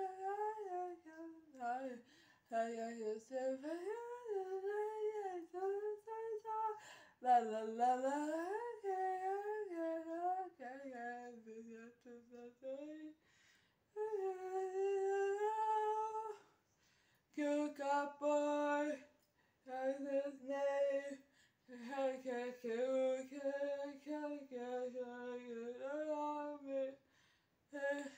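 A person humming a tune in a high voice, with no words. The first half is gliding, wavering phrases; after that come steadier held notes, with short pauses between the phrases.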